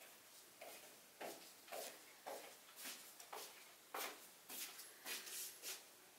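A cat makes a run of short, faint, scratchy strokes, about a dozen at roughly two a second, and then stops near the end.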